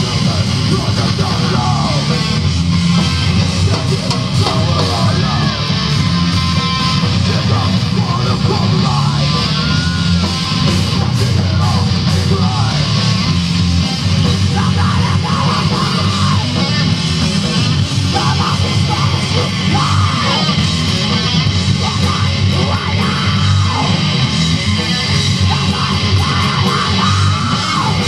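Heavy metal band playing live, loud and unbroken, led by electric guitars, with a melodic line bending over the top.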